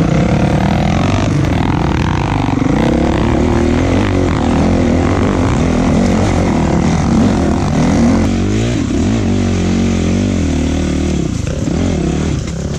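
Dirt bike engine heard close up from the rider's seat, loud, its revs rising and falling constantly as the bike is ridden over rough ground.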